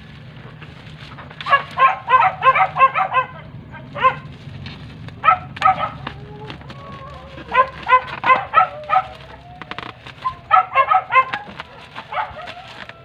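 A dog barking in quick runs of several barks, repeated five or six times. Under the barks, the plastic bubble mailer crinkles as it is cut with scissors.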